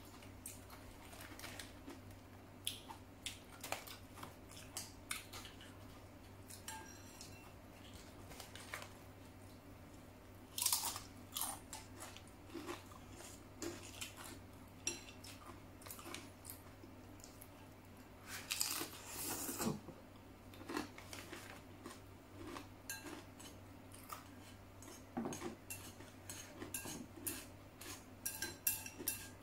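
Chopsticks clicking and scraping against a porcelain bowl while noodle soup is eaten, with chewing sounds. Two longer, louder noisy stretches stand out, about a third and two-thirds of the way through.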